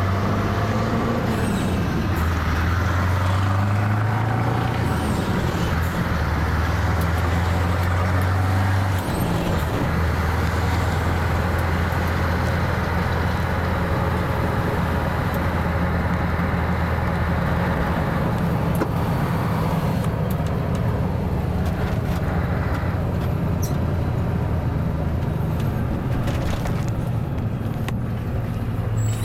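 Scania V8 diesel truck engine pulling under way, heard from inside the cab: its pitch rises in the first few seconds, breaks briefly about nine seconds in as a gear is changed, then runs steadily and eases off in the second half.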